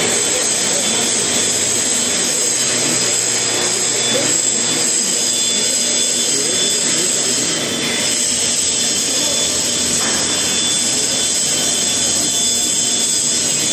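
A TIG welding machine at work, making a steady hiss with a faint high whine, with a brief dip about eight seconds in.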